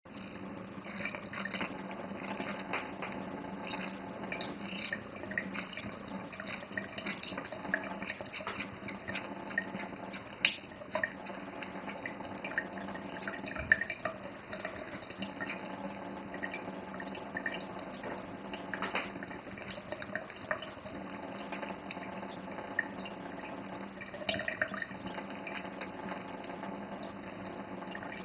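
Thin stream of kitchen tap water trickling steadily while a cat drinks from it, with many small irregular splashes and a few louder clicks as its tongue and face break the flow. A steady low hum runs underneath.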